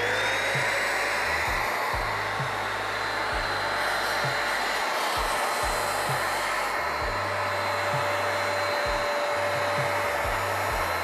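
Vacuum cleaner running steadily, drawing coffee grounds out of a burr grinder's inner burr chamber. Its motor whine settles to a steady pitch in the first moment.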